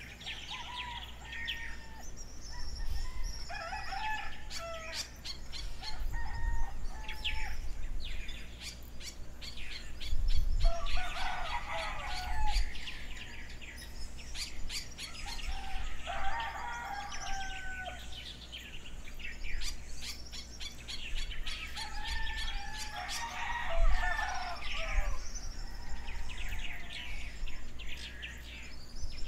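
Morning outdoor field recording with many small birds chirping and calling continuously, and a rooster crowing several times.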